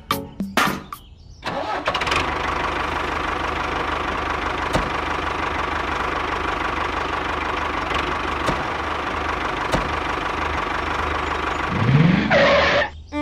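Miniature DIY tractor's small motor running steadily with an even whine. A few knocks come first, and near the end there is a brief rising sound and a louder burst.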